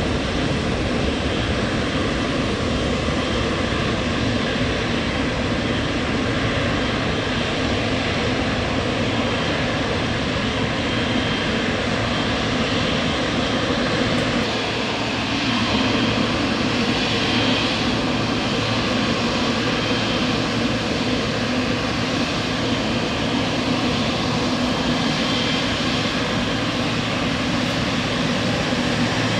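Jet airliner engines running, a steady loud rush of noise with faint engine tones through it. It dips briefly about halfway through.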